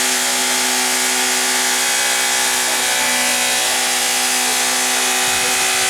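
Toyota car engine running with no radiator, held at steady revs with an unchanging pitch; it is being run to overheat and destroy itself.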